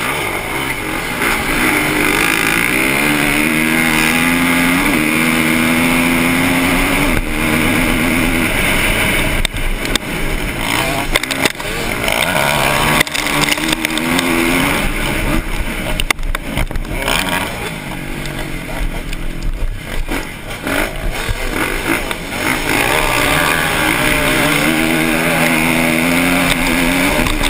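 Motocross bike engine heard from the rider's onboard camera, revving hard off the start and climbing in pitch through the gears, dropping back at each shift. The throttle eases off and comes back on several times, over a steady rushing hiss.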